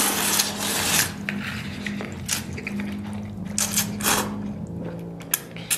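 Noodles in soup slurped loudly in several long sucks from a hand-held bowl. A steady droning hum runs in the background.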